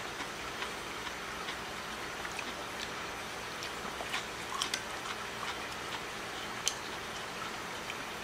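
Eating sounds: chewing a mouthful of cold ramen noodles and bean sprouts, with small scattered clicks of chopsticks against a ceramic bowl. A few sharper clicks come about halfway through and again near the end.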